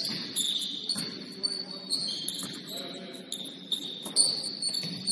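Basketball game in a gym: a ball bouncing on the hardwood a few times, about once a second, with sneakers squeaking on the court and players' voices.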